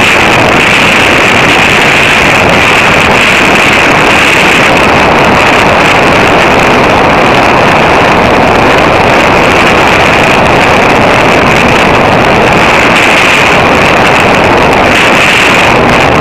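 Radio-controlled model plane in flight, its motor and the rushing air picked up by a camera mounted on the plane: a loud, steady drone with a hissing edge that barely changes as the plane banks.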